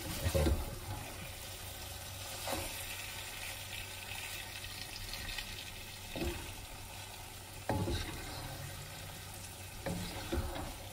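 Lamb pieces sizzling gently in a nonstick wok on low heat as they dry-roast, stirred and scraped with a wooden spoon. Several louder scrapes and knocks of the spoon against the pan stand out over the steady sizzle.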